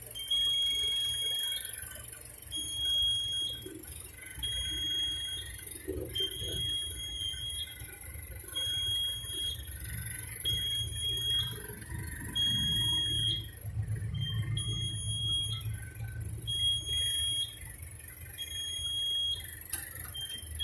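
Fire alarm control panel buzzer beeping: a high, even beep about a second long, repeating roughly every two seconds, over a steady low hum.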